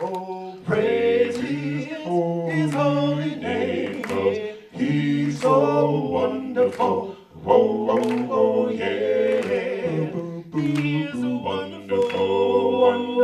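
Gospel vocal group singing a cappella in close harmony, several voices holding and moving through chords.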